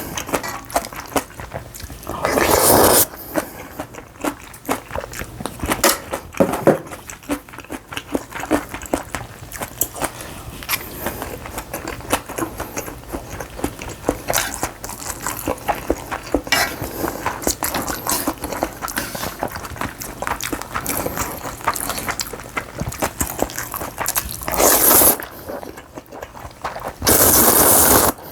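Close-miked eating of janchi guksu noodles and rice balls: steady chewing with small wet clicks and utensils clinking, broken by a few loud slurps of about a second each, once near the start and twice near the end.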